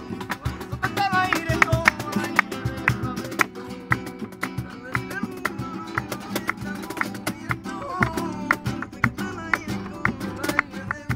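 Live flamenco on acoustic guitars, with sharp percussive strikes keeping the rhythm throughout. A man sings in a wavering flamenco style, near the start and again near the end.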